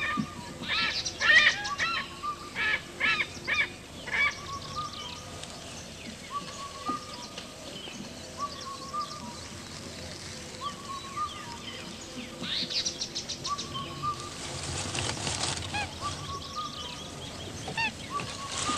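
Forest birds calling: a run of quick, arched calls in the first few seconds and again around the thirteen- and fifteen-second marks, over a softer call repeated about every second and a half.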